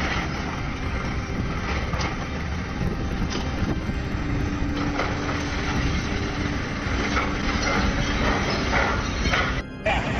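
Excavator engine running steadily under load, with scattered knocks and a held mechanical tone in the middle. The sound breaks off briefly near the end.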